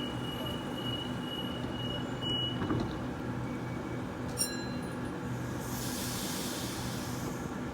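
Electric suburban passenger train pulling out of the platform after its doors close, with a steady hum from its motors. About five and a half seconds in a hiss of air rises and dies away, after a few light clicks.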